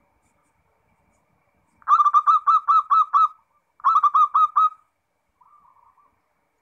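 Zebra dove (perkutut) cooing. About two seconds in come two quick runs of short, clear notes, the first of about seven notes and the second of about five. A fainter, shorter run follows near the end.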